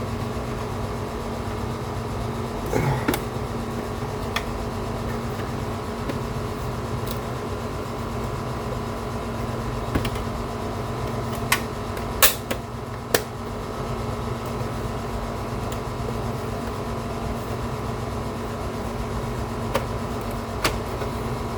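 Scattered sharp clicks and snaps of a DVD drive's case being pried open as its clips come loose, loudest about halfway through. Under them runs the steady hum of an air conditioner.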